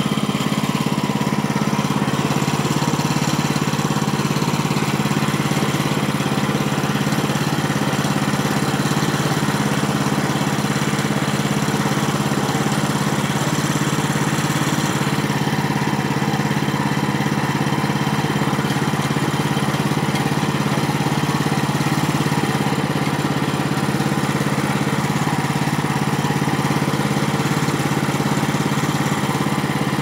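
Gasoline engine of a Woodland Mills HM130MAX band sawmill running steadily at a constant speed as the saw head travels along the rail.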